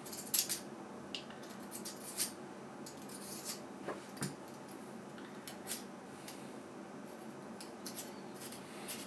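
Small clicks and light scraping from a threaded lens retaining ring being unscrewed by hand from a scope's element housing. The ticks come irregularly, the sharpest about half a second in and again about two seconds in.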